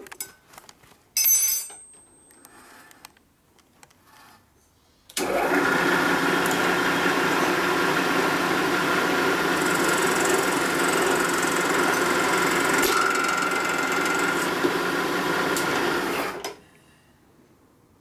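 A sharp metallic clink about a second in. Then a vertical milling machine starts about five seconds in and runs steadily with a fixed whine for about eleven seconds, its cutter machining the combustion chamber of an aluminium Harley-Davidson panhead cylinder head. It cuts off suddenly.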